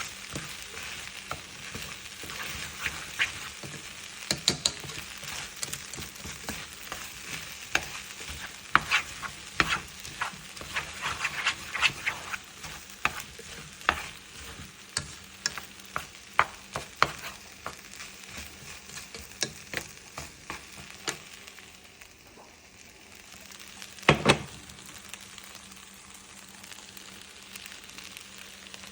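Fried rice sizzling in a pan as it is stirred, with a spatula clicking and scraping against the pan again and again. About 24 seconds in comes a louder double knock.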